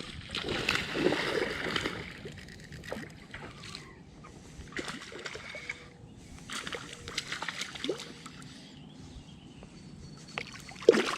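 Water splashing and sloshing as a hooked largemouth bass thrashes at the surface. The splashing is heaviest in the first couple of seconds, then comes in smaller bursts.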